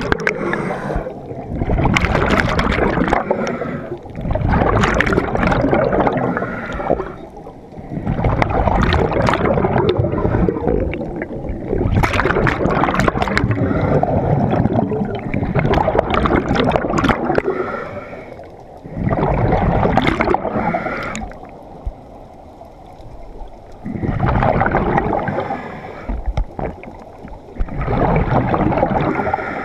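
Scuba regulator breathing heard underwater: long bubbling rushes of exhaled air every few seconds, with shorter, quieter pauses between breaths.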